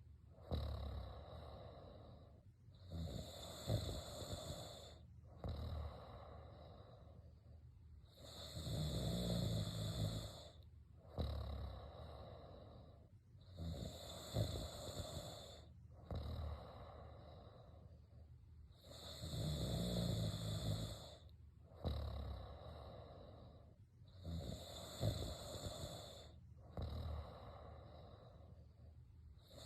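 Steady snoring: five loud snores about five and a half seconds apart, with a quieter breath between each pair.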